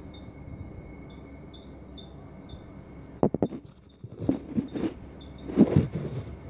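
An otter snuffling at close range with its nose against the phone: a quick cluster of knocks about three seconds in, then several short, rough sniffs.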